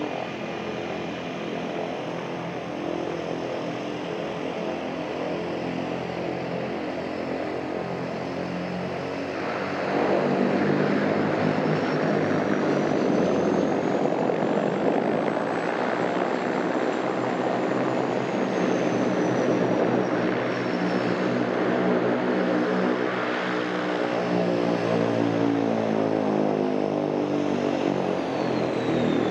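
Propeller aircraft engine running continuously. It grows louder about ten seconds in, and its pitch glides slowly up and then down.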